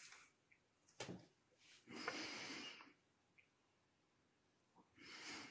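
Near silence broken by a few faint breaths close to the microphone, one about two seconds in and one near the end, with a soft click about a second in.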